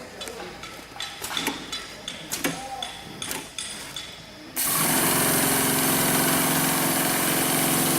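Industrial FIBC bulk bag sewing machine: a few light clicks and knocks, then just past halfway it starts sewing, a loud steady run with an even hum and a hiss that holds without change.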